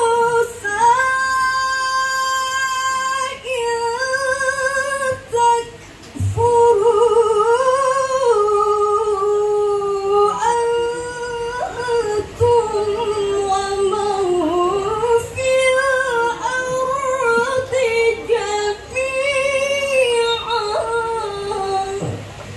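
A woman reciting the Quran in the melodic tilawah style, holding long ornamented phrases that rise and fall, with a short pause for breath about six seconds in.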